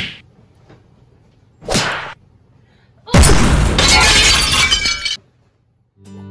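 Pillows tossed onto a bed, each landing with a quick whoosh and soft thud, twice; then about two seconds of loud rustling as an armful of blankets and pillows is bundled up. Acoustic guitar music starts right at the end.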